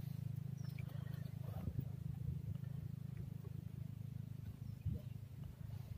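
A steady low rumble with a fast flutter, with a few faint knocks and rustles over it.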